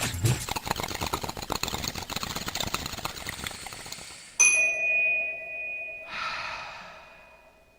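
Fast clattering that thins out, then about four seconds in a sudden bell-like ding rings out and dies away slowly, with a short breathy whoosh a couple of seconds after it.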